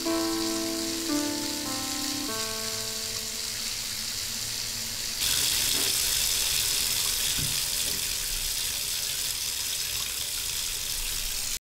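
A few held music notes over a steady hiss fade out, then about five seconds in a louder, even rush of running water sets in and cuts off abruptly near the end.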